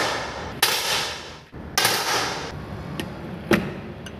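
A run of three sharp, shot-like bursts about a second apart, each trailing off over most of a second. Then come a few short clicks, with a louder crack among them about three and a half seconds in.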